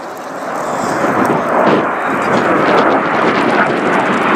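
A-10 Thunderbolt II's twin turbofan engines in a flyby: a loud jet rush that swells over the first second and then holds steady.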